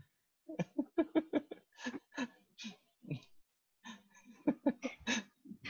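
A man laughing softly in short, breathy bursts, several a second, with breaths between.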